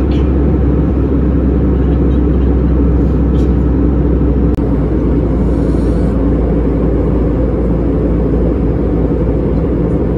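Steady drone of an Airbus A320-200's engines and rushing air, heard inside the passenger cabin.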